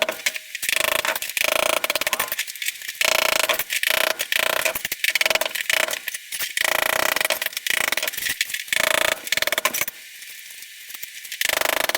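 Ceramic wall tile being broken off and scraped away with hand tools: rapid knocking and scraping with pieces of tile clattering. It eases off briefly about ten seconds in.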